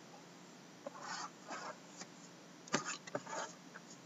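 Shrink-wrapped cardboard hobby box of hockey cards being handled and shifted on a wooden desk: a few soft rustles and scrapes, with one sharp knock about three-quarters of the way through.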